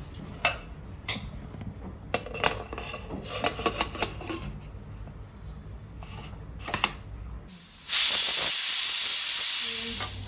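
Metal clinks and clicks as the aluminium lid of a pressure cooker is fitted and locked onto the pot. About seven and a half seconds in comes a loud hiss of steam forced out past the cooker's whistle weight, the sign that it has come up to pressure; the hiss fades slowly toward the end.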